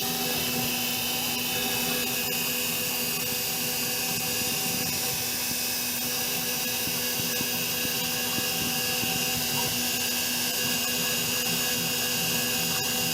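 CNC milling machine spindle running at full speed while a fine V-bit cuts thin brass sheet: a steady machine whine with several constant tones over a high hiss.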